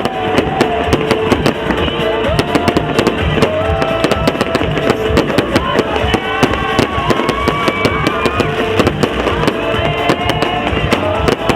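Fireworks going off: many quick, irregular bangs and crackles, over loud music.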